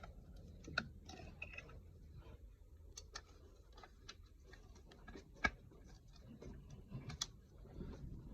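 Faint, scattered clicks and knocks of plastic and metal parts being handled in the engine bay as a new ignition coil pack is fitted. Sharper knocks come just under a second in, around five and a half seconds, and around seven seconds.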